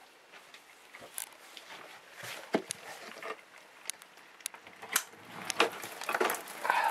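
Scattered clicks, taps and knocks of the camera being handled while someone moves through a doorway. A steady rain hiss comes up near the end.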